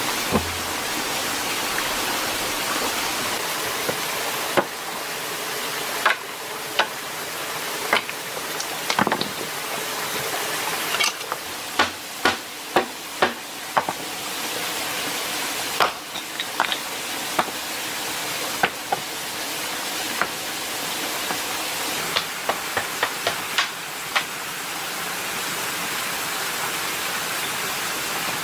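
Steady rushing of flowing water, with irregular sharp knocks and clacks as bamboo poles are handled and set against each other and the stones, most frequent about halfway through.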